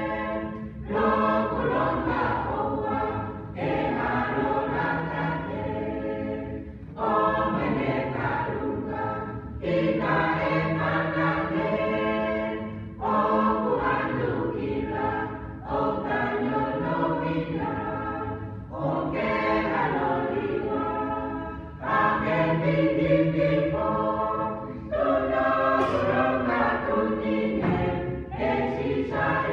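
A mixed church choir sings a hymn in phrases of about three seconds each, with short breaks for breath between them.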